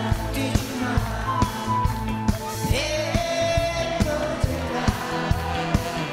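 A man's voice singing a trot ballad live into a microphone, backed by a band with drum kit and electric guitar keeping a steady beat.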